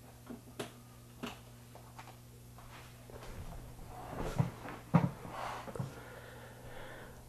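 Faint clicks of room light switches being turned off, then a cluster of knocks and rustling, loudest about five seconds in, from someone moving about the room.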